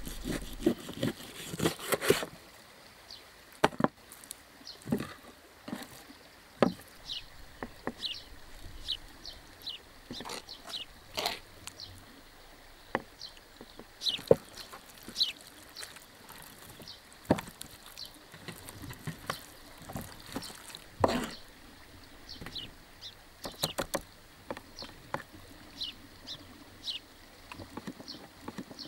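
Knife cutting raw pork belly on a wooden board and hands working marinade into the meat: scattered short knocks and handling sounds. Birds chirp again and again in the background, short high calls that fall in pitch.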